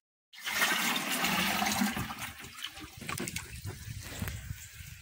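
Water sloshing and splashing as a plastic scoop is plunged into a barrel of water and drawn out, loudest in the first couple of seconds and then fading. Quieter rustling follows in the second half.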